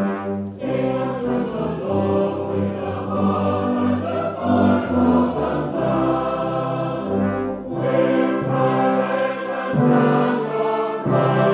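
Mixed choir of men's and women's voices singing a choral anthem, accompanied by a brass band, in long held chords phrase by phrase.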